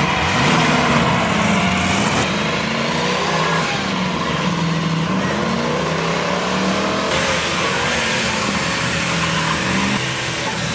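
Car engine running, its speed rising and falling in slow swells as it is revved.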